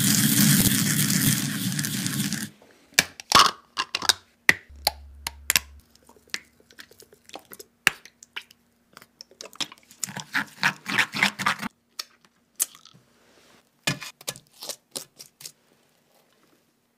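Sesame seeds being ground in a ridged ceramic suribachi with a wooden pestle: a gritty, rasping scrape for the first two and a half seconds. Scattered clicks, taps and short rustling scrapes of food handling follow.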